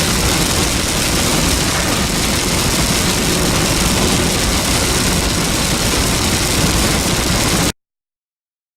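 Heavy rain pouring down steadily, as an even loud hiss over a low vehicle rumble; it cuts off suddenly near the end.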